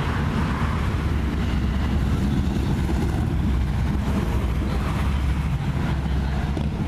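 Road traffic going by: a steady low rumble of passing vehicles, with a pickup truck driving past close near the end.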